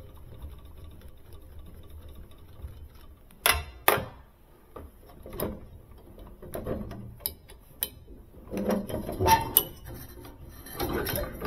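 Hand tools and metal parts being handled: two sharp knocks about three and a half seconds in, a scattering of clicks, then scraping and rattling near the end.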